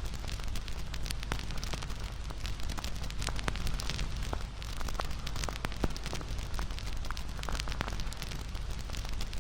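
Wood fire burning, with dense irregular crackles and pops over a low steady rumble.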